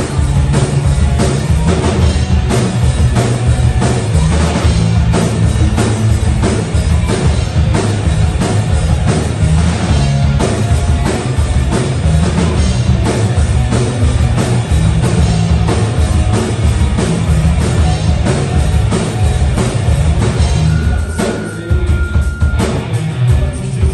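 Live rock band playing loud: electric guitars, bass and drum kit, heavy in the low end with a steady drum beat. Near the end the band drops back briefly while a single high note is held for about a second and a half.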